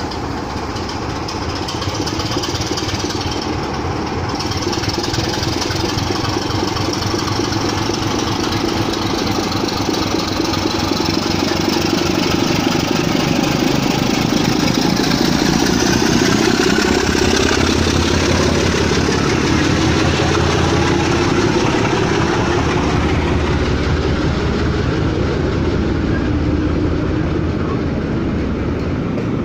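Heritage British Rail diesel locomotive's engine running steadily as the locomotive passes at low speed hauling its train, followed by the coaches rolling by on the rails; the low rumble grows stronger about halfway through.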